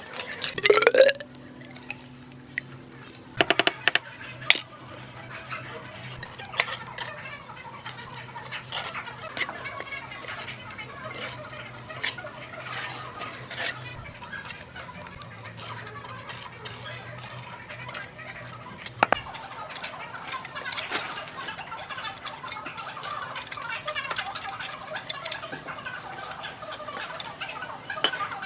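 Steel trowel scraping and smoothing wet cement mortar, with sharp metal clinks where the trowel strikes, the loudest near the start.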